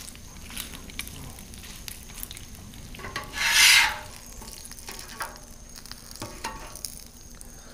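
Bacon frying and sizzling on the hot, greasy steel top of a Blackstone griddle, while a metal spatula scrapes and clicks against the plate. About three seconds in there is a louder burst of hiss lasting under a second.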